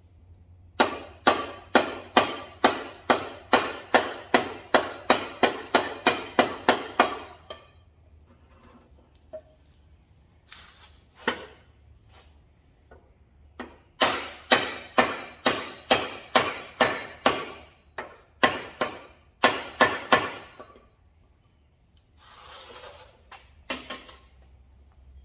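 Tomahawk striking a block of wood to drive a bicycle headset cup into the frame's head tube: a run of about seventeen quick, evenly spaced blows, a single blow after a pause, then a second run of a dozen or so blows. A short rustle and one last blow come near the end.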